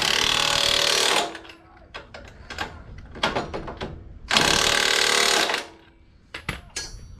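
An air impact wrench runs in two short bursts, one at the start and one about four seconds in, driving suspension bolts, with metal clicks and knocks between the bursts.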